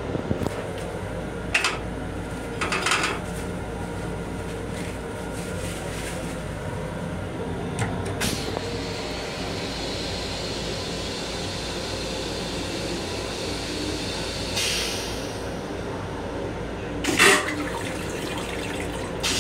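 Stainless-steel toilet in an M7 railcar restroom flushing. A click about eight seconds in is followed by several seconds of water running into the bowl, then a short loud whoosh near the end as the bowl empties, over the train's steady running hum.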